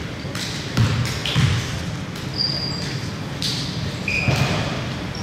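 A basketball bouncing on a hardwood gym floor a few times, with short high squeaks of sneakers on the court.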